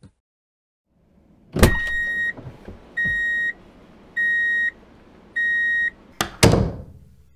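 A plastic clack, then four evenly spaced electronic beeps, each about half a second long, like a reversing alarm, as a toy truck backs into a plastic toy garage. Near the end there are two sharp plastic clacks as the garage's flip-down door snaps shut.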